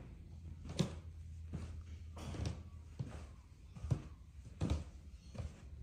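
Footsteps going down carpeted stairs: about seven dull thuds, one every second or less, over a low steady hum.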